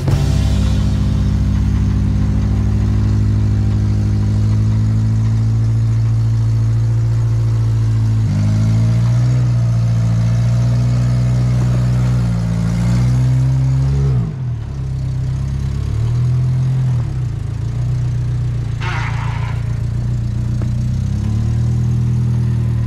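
Off-road vehicle's engine running at low revs while crawling. It revs up and back down several times about 8 to 14 seconds in, drops off sharply, then settles back to a steady low run.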